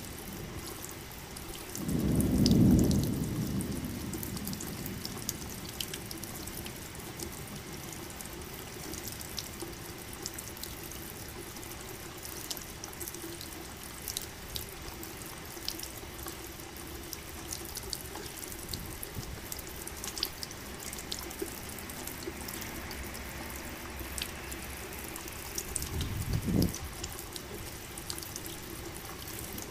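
Steady rain with scattered drips. A low rumble of thunder about two seconds in is the loudest sound, and a shorter one comes near the end.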